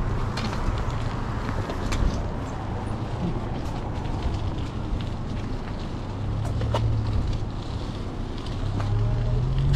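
A car engine running close by, a low steady hum that grows louder and rises slightly near the end, over the rolling noise of a dirt jump bike on pavement, with a few scattered clicks.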